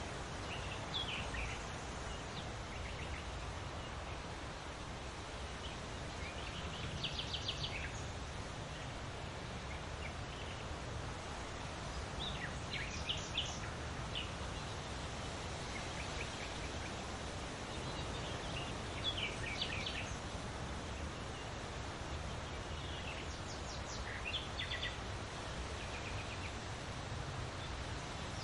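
Leaves rustling steadily in the wind, with a bird repeating short, high chirping phrases every five or six seconds.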